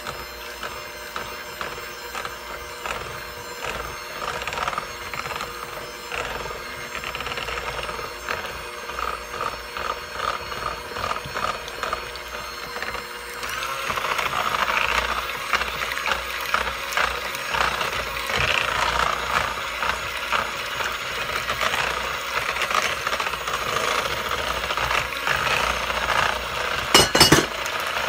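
Electric mixer beating a lemon icebox pie filling of sweetened condensed milk, lemon juice and egg yolks in a bowl: a steady motor whine with fast rattling. It gets louder about halfway through, and there are a few sharp knocks near the end.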